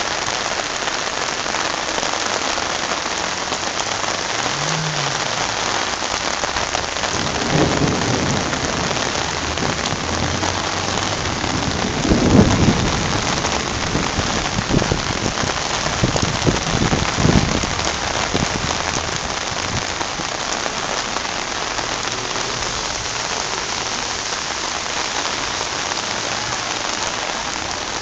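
Heavy rain pelting down on a flooded road and standing water: a steady, dense hiss. A few low rumbles swell up in the middle, the loudest about twelve seconds in.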